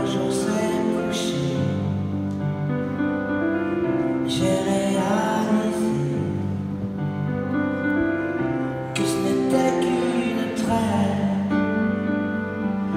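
Live concert music heard from the audience: a slow instrumental passage of long held keyboard chords, with fuller, brighter swells starting about four and nine seconds in.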